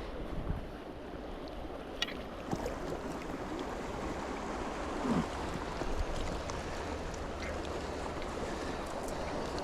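Steady rush of river water, with a sharp click about two seconds in.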